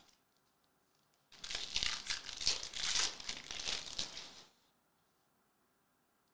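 A Topps Chrome trading-card pack wrapper being torn open and crinkled by hand for about three seconds, starting a little over a second in.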